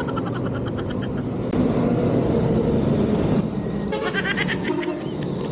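Motorcycle engine running at low speed as the bike rolls up to a fuel pump. Twice there is a brief high, rapidly pulsing buzz over it: once at the start and once around four seconds in.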